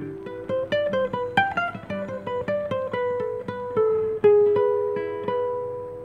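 Classical acoustic guitar played fingerstyle: a melody of single plucked notes over low bass notes, thinning out to a note a little past four seconds in that is left to ring and fade.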